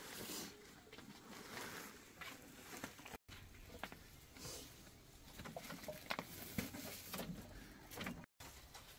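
Faint, scattered small clicks and knocks over a quiet background hiss, cut out twice by brief total dropouts.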